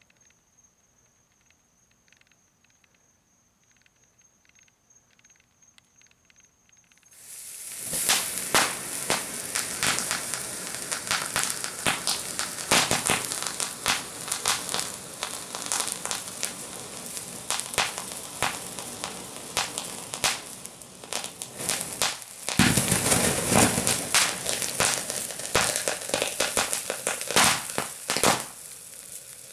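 An antimony sulfide sandfire, a ground pyrotechnic fountain, burns almost silently at first. About seven seconds in it suddenly flares into a shower of sparks: a loud rushing hiss packed with crackles and pops. It surges louder again for several seconds near the end.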